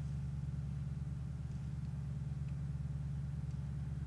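Steady low hum, with a few faint light ticks as hard plastic model-kit parts are handled.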